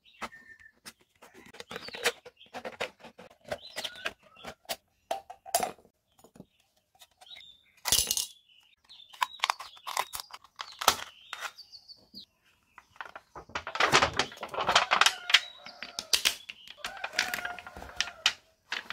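Thin aluminium drink can being cut open with scissors: irregular snips, clicks and crinkles of the thin metal. About two-thirds of the way through there is a louder stretch of crackling as the cut sheet is handled and pressed flat.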